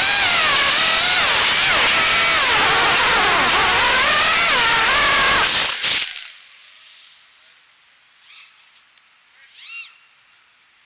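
FPV racing quad's brushless motors and propellers whining, the pitch rising and falling with the throttle. About six seconds in the sound cuts off and drops to a faint background, with two brief faint chirps near the end.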